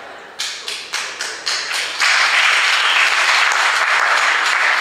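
Audience applause: a few scattered claps about half a second in, swelling into full, dense applause about two seconds in.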